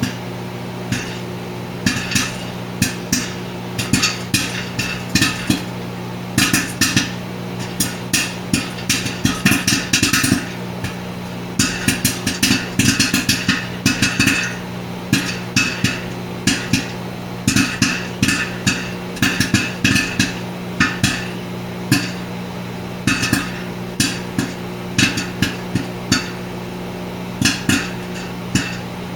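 Popcorn kernels popping rapidly and irregularly in a microwave popcorn popper, many sharp pops, often in quick clusters, over the steady hum of the running microwave oven.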